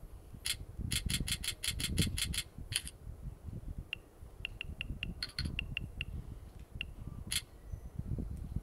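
Key-press sound effects of a downloadable keyboard skin as keys are tapped: a quick run of about a dozen sharp clicks, then a string of short high beeps, then one more click, over soft taps of fingers on the keys.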